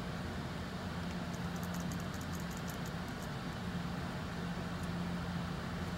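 Steady low mechanical drone and hum of machinery running in a dyno bay, with a few faint light clicks about one and a half to three seconds in.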